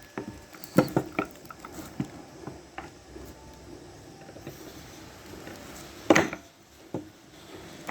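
Scattered metal clinks and knocks of drum-brake shoes and their return springs being handled and fitted onto a scooter's brake plate, with the loudest knock about six seconds in.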